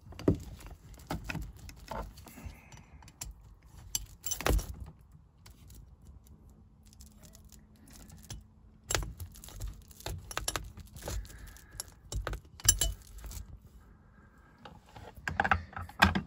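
Screwdriver undoing small metal screws on a hose clip and valve bracket: scattered metallic clicks, clinks and scrapes of the tool on the screws, with a few louder knocks.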